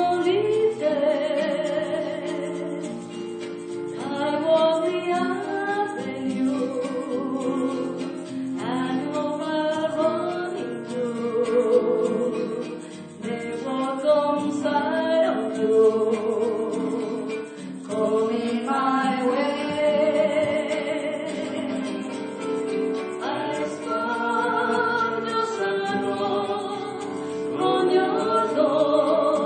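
Music with voices singing together, choir-like, over instrumental accompaniment.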